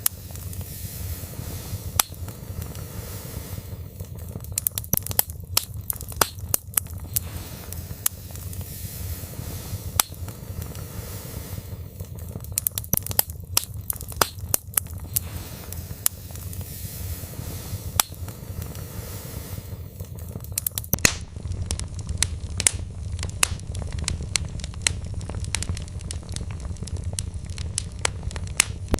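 Wood fire burning in a fireplace: irregular sharp pops and snaps of burning logs over a low, steady rush of flames.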